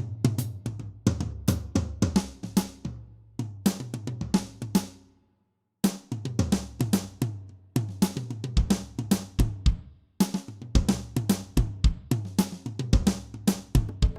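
Background music with a drum-kit beat of kick, snare and hi-hat over a bass line. It fades out about five seconds in, goes silent for a moment, then starts again.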